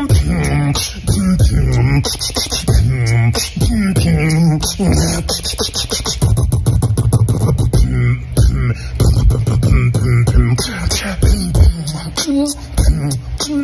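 Human beatboxing: a steady, tight hip-hop beat of mouth-made kicks, snares and hi-hat clicks, with hummed bass tones sliding in pitch underneath.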